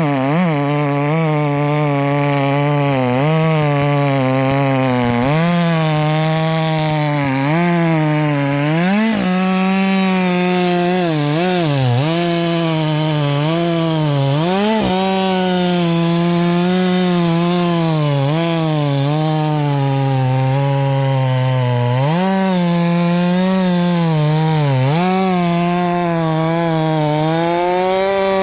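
Husqvarna 564XP 60cc two-stroke chainsaw with a 32-inch bar and full-comp chain, running at high revs while cutting wood. The engine pitch dips under load again and again and comes back up, a dozen or more times. The chain has just had its rakers lowered and is cutting smoothly.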